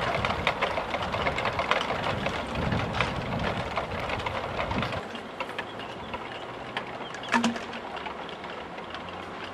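Wind gusting over the microphone with a dense rustling crackle, dropping about five seconds in to a quieter, steadier background with a single sharp click.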